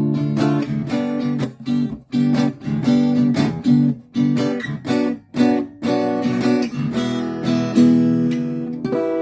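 1955 Harmony Broadway H954 archtop guitar strummed in rhythmic chords, choppy with short stopped gaps between strokes, ending with a last chord struck near the end and left ringing.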